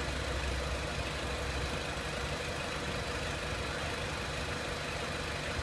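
Renault Clio 1.6 petrol four-cylinder engine idling steadily.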